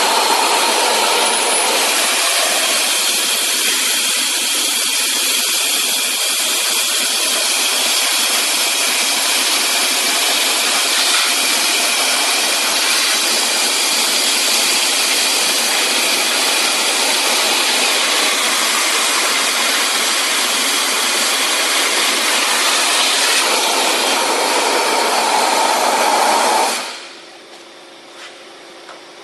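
Compressed-air-driven wet/dry vacuum cleaner running with a loud, steady rushing hiss, shutting off about 27 seconds in.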